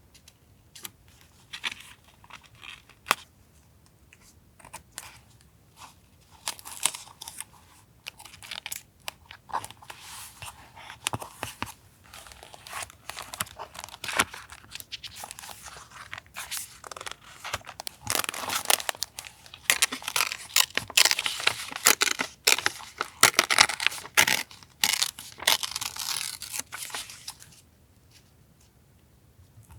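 Close-up paper handling for journal collage: a few light taps and clicks, then a long run of paper rustling, crinkling and tearing, busiest in the second half, which stops a couple of seconds before the end.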